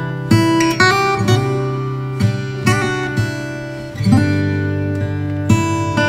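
Acoustic guitar music: chords strummed and left to ring, with a fresh strum every second or so.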